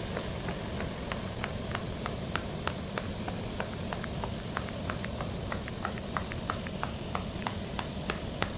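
Fidget toy clicking: light, sharp clicks, irregular, several a second, over a steady hiss.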